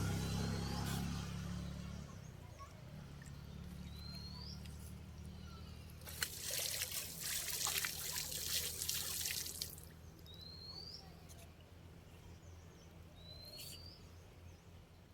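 Water splashing and trickling for about three and a half seconds midway through, over a low steady hum. A bird gives a short rising call every few seconds.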